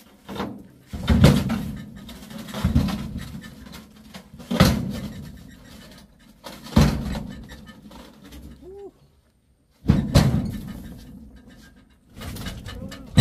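A series of about six heavy thuds, each dying away briefly, spaced roughly two seconds apart.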